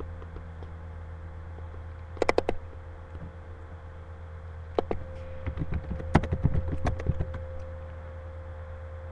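Laptop keyboard keys tapped close to the microphone: a quick run of about five clicks two seconds in, a single click near five seconds, and a longer uneven run from about five and a half to seven and a half seconds, over a steady low hum.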